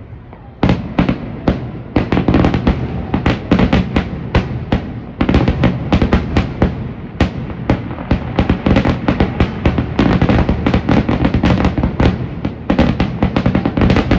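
Fireworks display in a dense barrage: many aerial shells bursting in quick, overlapping bangs, several a second, over a continuous rumble. A short lull comes first, and the barrage picks up under a second in.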